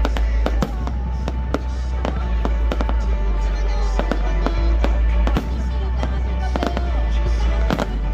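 Fireworks display: a rapid, irregular string of sharp bangs and pops, many overlapping, with loud music playing underneath.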